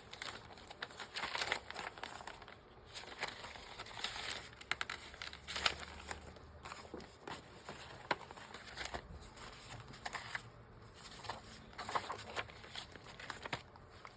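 Sheets of paper rustling and crinkling as they are handled and arranged, with scattered light taps and ticks.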